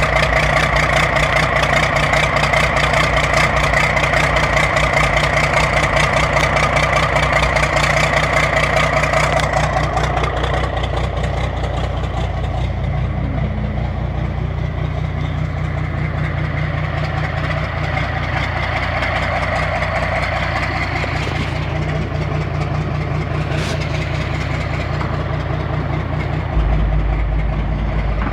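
Bedford TL truck's diesel engine idling with no exhaust manifold fitted, running straight out of the open exhaust ports with a fast, even clatter. It drops in level about ten seconds in, and a heavier low rumble joins near the end.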